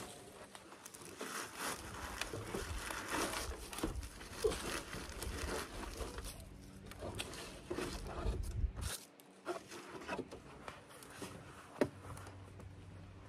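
Dry leaves and debris in a metal roof gutter crackling and rustling as hands scoop them out, with scrapes and light knocks on the corrugated metal roofing. The crackling thins out in the last few seconds, with one sharp click near the end.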